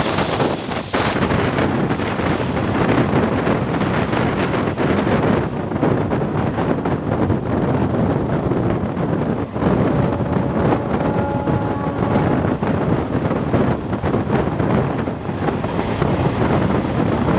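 Noise of an ICF passenger coach running at speed, with wind buffeting the microphone and occasional knocks from the running gear. About ten seconds in, the horn of the hauling WAG-9Hc electric locomotive sounds faintly ahead for a couple of seconds.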